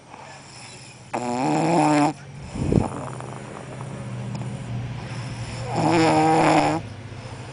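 A person snoring: two loud, drawn-out snores about a second long each, roughly four and a half seconds apart, with a short low puff between them.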